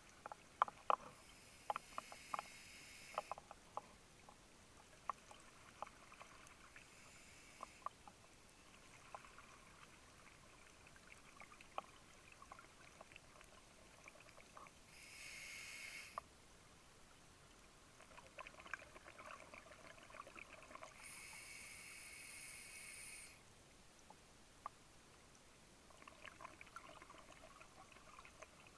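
Scuba regulator breathing heard underwater: a few hissing breaths, each a second or two long, spaced irregularly, with gurgling bubbles between. Scattered sharp clicks and crackles run throughout.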